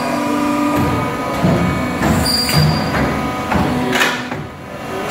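CNC tube bending machine running a bend cycle: steady whining tones from its drives with a few sharp metallic clanks as the bend head, clamps and tube move. The loudness drops briefly just after the last clank.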